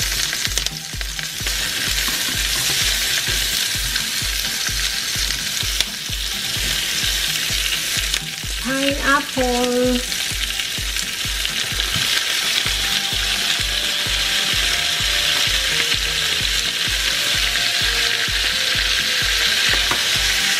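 Diced onion and red capsicum sizzling steadily in hot oil in a nonstick frying pan, stirred with a silicone spatula.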